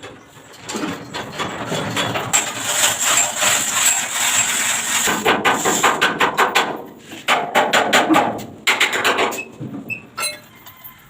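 Rapid metal-on-metal knocking, many blows a second, in two runs: a long dense one, then after a short break about seven seconds in, a shorter run of evenly spaced strokes.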